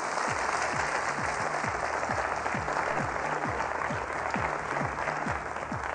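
Studio audience applauding steadily, with a game-show music cue and its quick, even drumbeat underneath.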